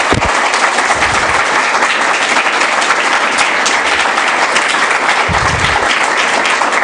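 Audience applauding, a steady dense patter of many hands clapping at once.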